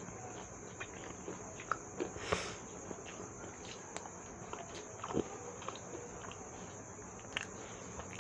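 A person chewing a bite of crispy fried potato samosa: faint, scattered small crunches and mouth sounds.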